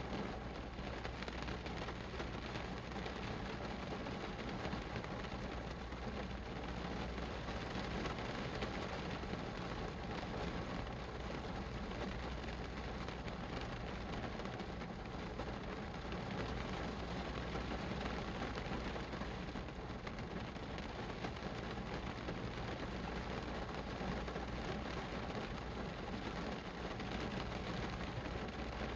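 Steady rain falling, an even hiss with a low rumble underneath that does not let up.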